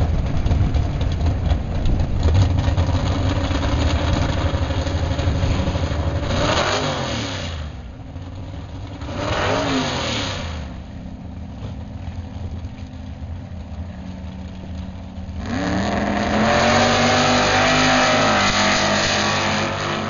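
Drag racing V8 engines at the start line, a 1967 Corvette's among them: loud running at first, then two quick revs that rise and fall in pitch, then a quieter idle. About fifteen seconds in, both cars launch and accelerate hard with a rising engine note.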